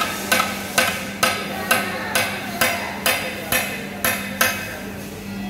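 Hammer blows on a truck wheel during a tyre change, struck in a steady rhythm of about two a second, each with a short metallic ring, about eleven in all before stopping near the end.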